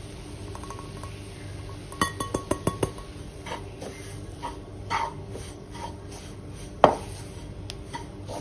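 Spatula knocking and scraping in a nonstick kadhai as gram flour is mixed into radish leaves: a quick run of sharp taps about two seconds in, then scattered scrapes and one louder knock near the end. Faint background music underneath.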